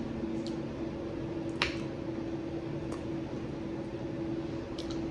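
Quiet eating sounds: a handful of sharp clicks from a fork on the plate and from chewing, the loudest about one and a half seconds in, over a steady low hum.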